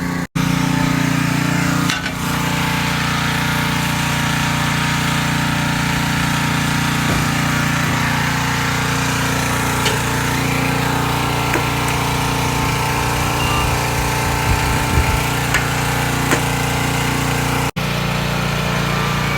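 Gas-engine pressure washer running steadily with a constant drone and a hiss above it, cutting out for an instant twice.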